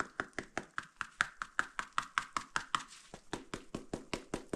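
A rapid, even run of sharp taps or clicks, about five a second.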